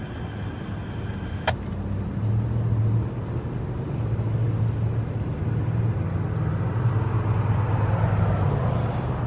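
Motor vehicle running with a low, steady hum that grows louder after a couple of seconds and swells near the end. A single sharp click comes about a second and a half in.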